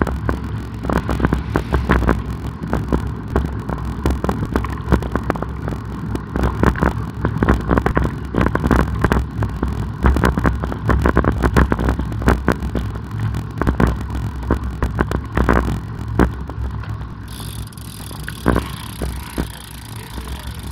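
Wind rumbling and buffeting on the microphone of a camera riding along on a road bicycle, with many irregular knocks and rattles. A steady hiss joins in over the last few seconds.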